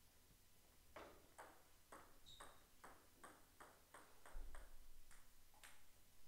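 A table tennis ball bouncing repeatedly on a hard surface: about fifteen sharp clicks that come quicker and quicker, then two more spread out near the end.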